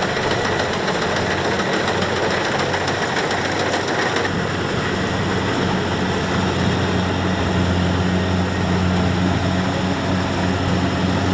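Kubota DC-70X rice combine harvester's diesel engine and machinery running steadily, an even, loud mechanical drone.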